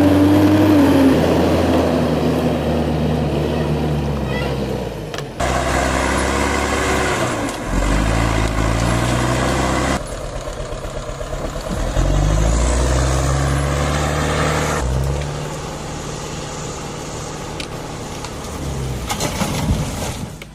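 A log-hauling tractor's engine running and revving in several clips spliced together, its pitch and level changing abruptly every few seconds.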